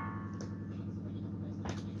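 The last notes of an iPhone ringtone dying away over the first half second, then a steady low hum with two clicks, the sharper one near the end.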